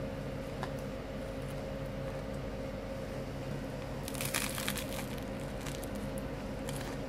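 Bite into a crusty bánh mì baguette about four seconds in, a short cluster of crisp crunches, with quieter chewing clicks before it. A steady low hum runs underneath throughout.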